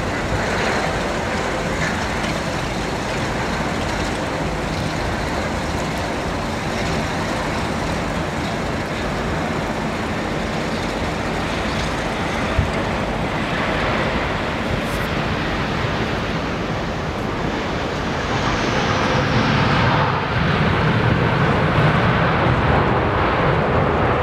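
Airbus A321 jet airliner on final approach, its engines running under a steady rush of wind on the microphone, growing louder from about eighteen seconds in as it passes low, with a whine that falls in pitch.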